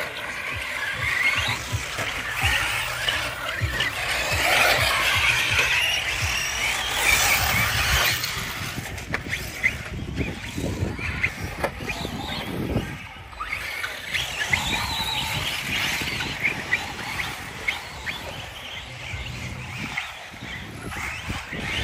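Radio-controlled cars driving on a track: their motors whine high, rising and falling in pitch, mixed with tyre squeal.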